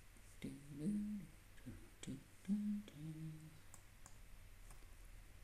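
A person humming a few short, held notes under the breath, with mouse clicks now and then.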